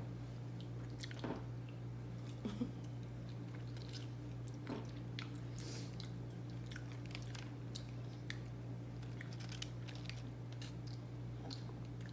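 A person chewing and biting into chicken wings close to the microphone, with scattered soft mouth clicks and crunches over a steady low hum.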